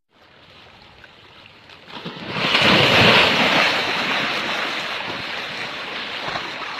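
A rushing noise without any pitch, faint at first, swelling loudly about two seconds in and then slowly dying away.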